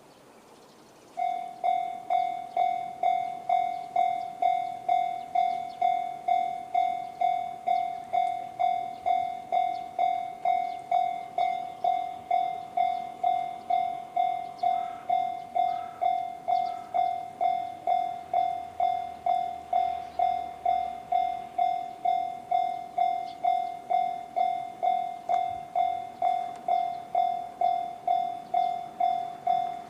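Japanese railway level-crossing alarm starting about a second in: the JR standard electronic crossing bell, one pitched ding repeating evenly at a bit under two a second, warning that a train is coming.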